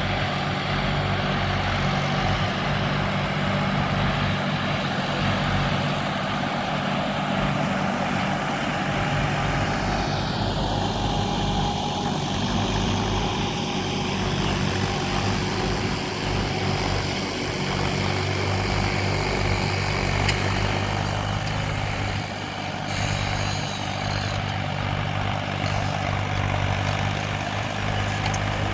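Tractor diesel engine running steadily under load while pulling a plough.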